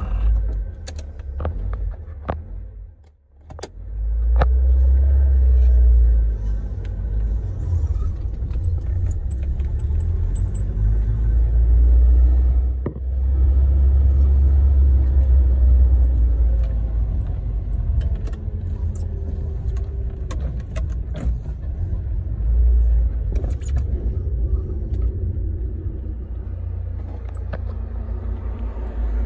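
Toyota Carina being driven, heard from inside the cabin: a deep, steady engine and road drone whose engine pitch drifts up and down, with the ignition keychain jangling. The drone drops away briefly about three seconds in and dips again around thirteen seconds.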